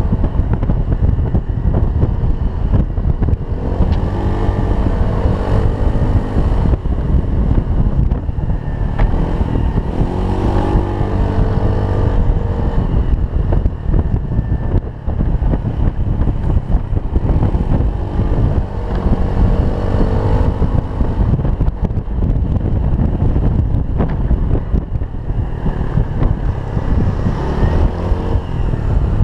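Wind buffeting the microphone on a moving Honda Zoomer X scooter, with the small engine running underneath.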